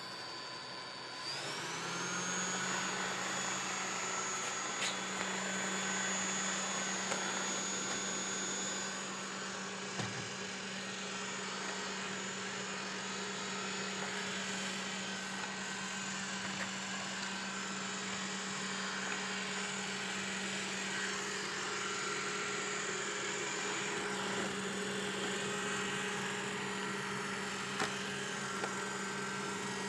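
Robot vacuum cleaner's motors spinning up about a second in, then running with a steady hum and a high whine, as it starts a cleaning run.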